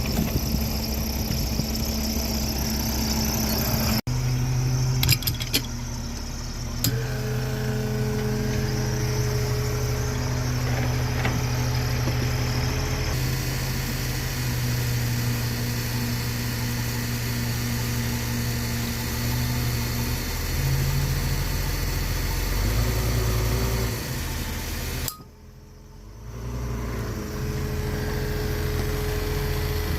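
Engine of a log-loading lift running steadily, its pitch shifting a few times as it works, with a few knocks about five to seven seconds in.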